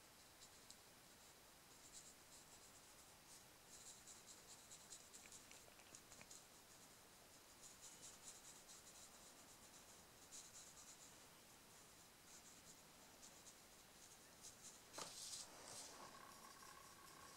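Faint scratchy strokes of a water brush's bristles on paper, in short bursts, as pastel colour is worked in with water. Near the end there is one louder scuff.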